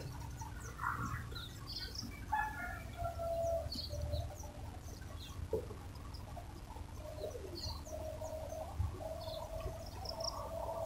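Outdoor bird calls: short high chirps scattered throughout, with drawn-out lower calls about two to three and a half seconds in and again over the last few seconds.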